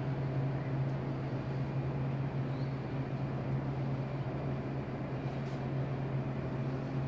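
Steady low machine hum, an unchanging drone that holds at one level.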